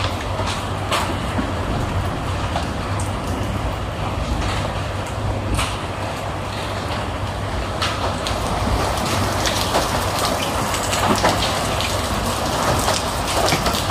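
Hailstorm: a steady hiss of heavy rain with many scattered sharp ticks of hailstones striking, over a low steady rumble.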